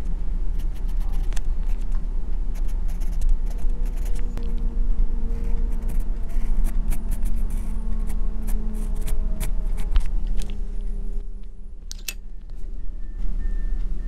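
Pencil scratching and tapping on drawing paper during shading, a run of short strokes that thins out about ten seconds in, over a steady low rumble.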